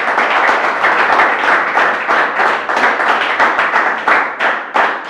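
An audience clapping and applauding, a dense patter of many hands that thins toward the end.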